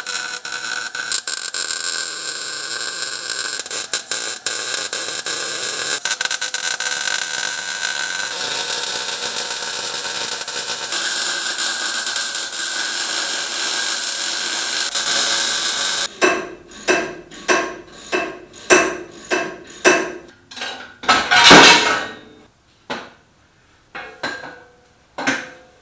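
MIG welder laying a bead on a steel engine-cradle tube, a continuous crackling sizzle. About two thirds of the way through it gives way to a run of short sharp bursts, about one a second.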